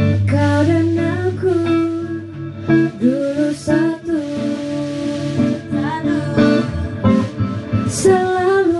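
A woman singing into a microphone with long held notes, over instrumental accompaniment.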